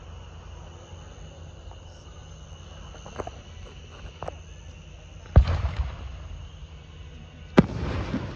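Fireworks going off: two faint pops, then two loud bangs a little past halfway and near the end, each followed by a crackling rumble. A steady high insect chorus runs underneath.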